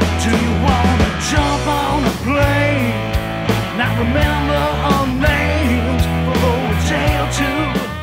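Southern rock band recording playing: electric guitars over bass and a steady drum beat, with a lead line that bends and wavers in pitch.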